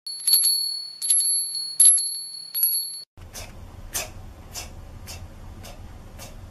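A bright, bell-like electronic chime struck four times over about three seconds. After it, a child says the letter sound /t/ again and again in short crisp bursts, just under two a second, over a faint low hum.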